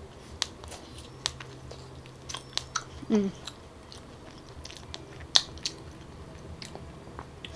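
Close-up chewing of Musang King durian flesh, with sharp mouth clicks scattered through and a brief voiced sound about three seconds in.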